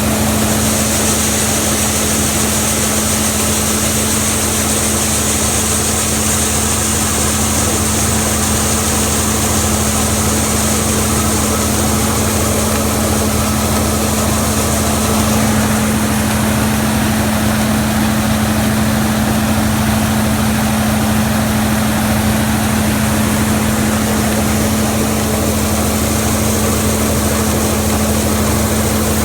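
Large farm machine's diesel engine running steadily under harvest work, with a high hiss that fades about halfway through.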